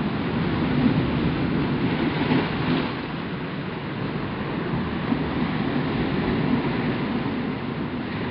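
Ocean surf breaking and washing in over flat rock ledges: a steady rush of foaming water that swells and eases with the waves.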